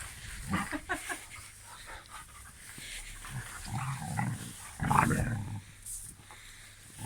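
A dog making several short, irregular vocal sounds, the loudest about five seconds in.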